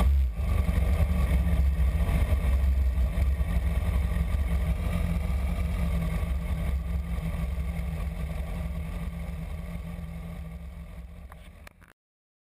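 BMW S1000RR inline-four engine running at low revs as the bike rolls along, a steady low drone. It fades away over the last few seconds and cuts to silence just before the end.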